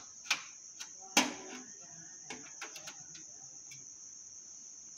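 Sharp metal clicks and taps as a graphics card's bracket and the steel case's expansion-slot retaining clip are handled and pushed into place, the loudest about a second in and a small cluster near the middle. A steady high-pitched tone runs underneath.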